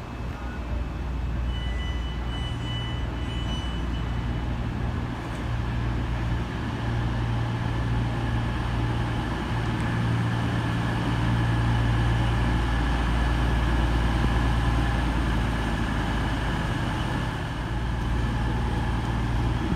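CrossCountry Voyager diesel multiple unit running in along the platform, its underfloor diesel engines giving a steady low drone that slowly grows louder as it nears. A brief high squeal comes in about two seconds in.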